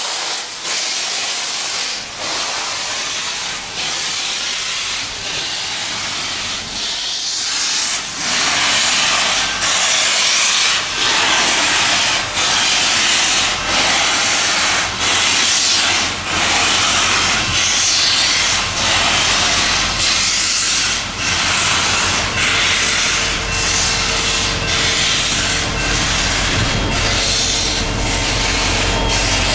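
Union Pacific Big Boy 4014, an articulated 4-8-8-4 steam locomotive, working along with its exhaust chuffing and steam hissing. The chuffs get louder about a quarter of the way in and settle into a steady beat of roughly one surge a second.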